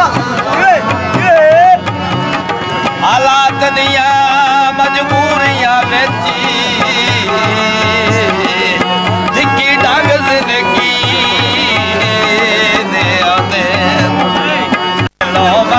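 Live Pakistani folk music: a harmonium holding steady chords and a tabla keeping a regular beat, with a man's voice singing a wavering melody over them. The sound cuts out for an instant near the end.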